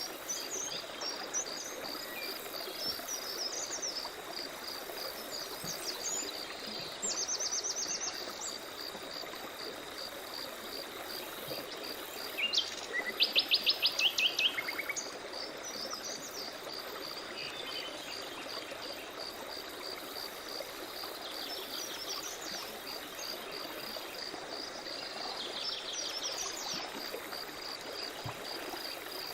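Forest soundscape of birds calling over a steady pulsing insect chirp and the hiss of running stream water. The loudest call is a rapid trill of quick notes about halfway through, with shorter trills before and after it.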